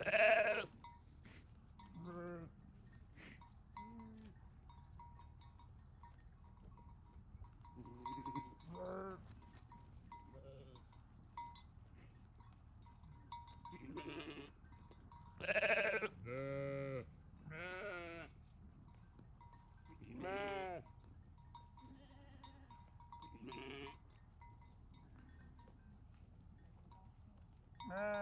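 A flock of sheep bleating on and off, about ten quavering calls at different pitches from several animals, the loudest right at the start and around the middle.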